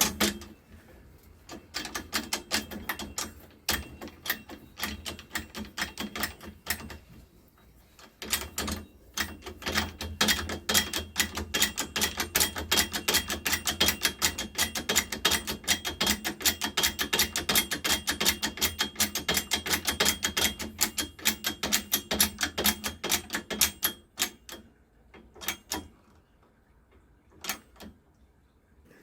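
Rapid, even metallic clicking at about six clicks a second, like a ratchet being worked, as the fork stem is pressed into the yoke. It pauses briefly about seven seconds in, resumes, and stops near the end, with a few last single clicks.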